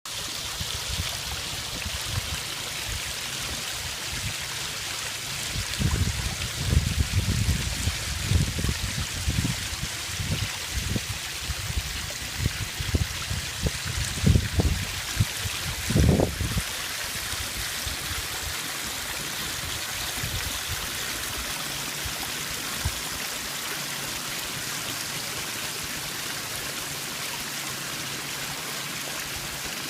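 Waterfall: a steady rush of falling water. Irregular low rumbles and thumps come in about six seconds in and stop after about sixteen seconds.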